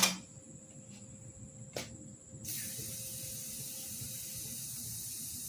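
A single sharp click, then a steady high hiss that starts abruptly about two and a half seconds in and carries on evenly.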